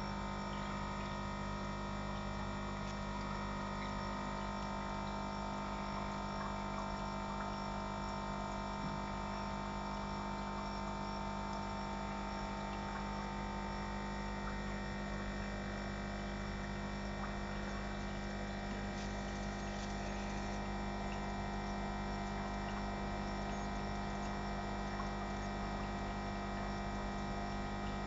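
Aquarium pump humming steadily, with a constant tone and water bubbling from the aeration.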